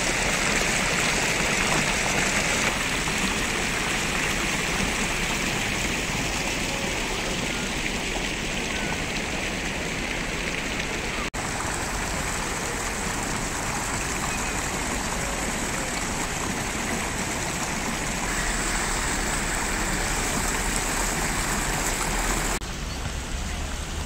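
Fountain jets splashing into a stone basin, a steady rush of falling water. It turns softer and duller near the end.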